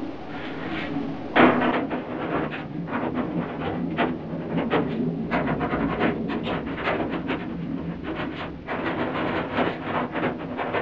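Clicking, scraping and rattling of hand tools and screws against a clothes dryer's sheet-metal back panel, the work of taking the panel off. There is one loud knock about a second and a half in, then a quick run of small clicks.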